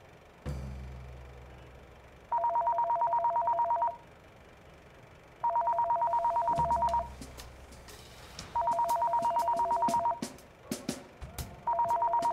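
Telephone ringing with an electronic trill: four rings of about a second and a half each, every three seconds or so. Low booms about half a second and six and a half seconds in.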